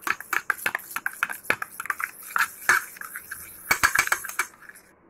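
Metal spoon stirring a wet paste in a steel bowl, with quick irregular clinks and scrapes of the spoon against the bowl's side. The stirring stops shortly before the end.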